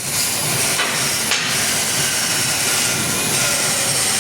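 Wood planer machine running with a steady, noisy whir, with two brief sharper sounds about a second in.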